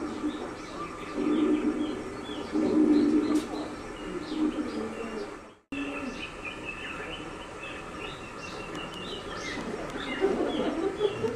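Cicada calls in rapid, repeated chirps over a low murmur of distant voices, with a brief dropout a little past halfway.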